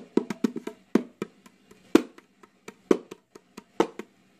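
Hollow, wood-block-like knocks from a baby's plastic activity-centre toy: a quick run of about six or seven knocks a second in the first second, then single knocks roughly once a second.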